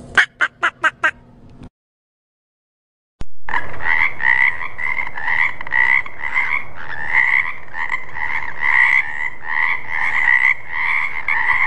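A quick run of about six short duck calls, then a pause, then frogs croaking loudly and without a break in a pulsing chorus of about two calls a second.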